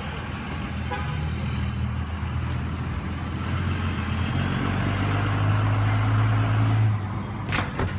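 Engine of a large vehicle running close by, growing louder through the middle and dropping off about a second before the end, followed by a couple of sharp knocks.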